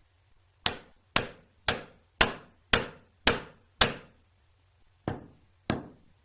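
Hammer blows on the steel kickstand of an Alpha moped, straightening the bent stand: seven strikes at about two a second, a short pause, then two more.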